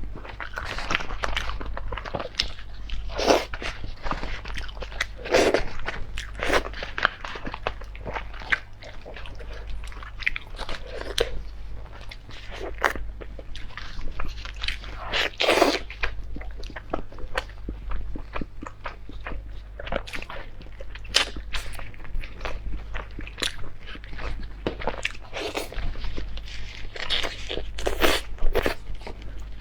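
A person eating close to the microphone: chewing and biting food, with many short, irregular mouth sounds and a few longer, wetter ones.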